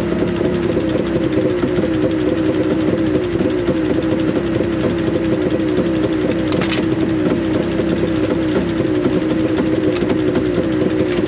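Tracked four-wheeler's engine idling loudly and steadily, with a brief click about six and a half seconds in.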